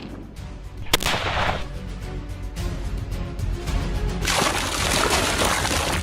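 Background music with a single sharp crack about a second in, like a rifle shot, and a broad rushing noise starting about four seconds in.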